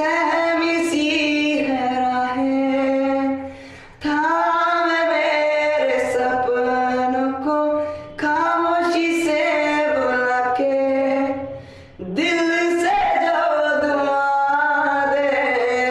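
A young man singing a Hindi pop ballad unaccompanied, in long held notes with slides and ornaments, breaking for a breath about every four seconds.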